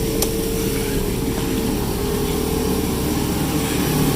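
A car's engine running steadily, with a constant mid-pitched hum over a low rumble.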